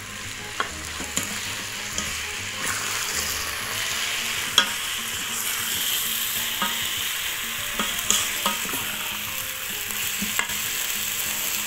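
Diced chicken breast sizzling steadily as it fries in an electric pressure cooker's inner pot on the sauté setting. A wooden spoon stirs it, scraping and knocking against the pot now and then.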